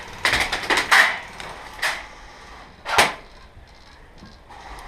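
Airsoft gunfire: a rapid clattering burst for about the first second, then single sharp cracks near two and three seconds in.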